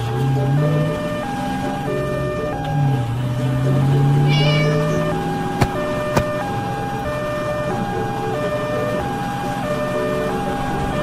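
Fire truck's two-tone hi-lo siren sounding steadily, alternating between a higher and a lower note, over a low engine drone that rises in pitch twice. A cat meows once about four seconds in, and two sharp clicks come around six seconds in.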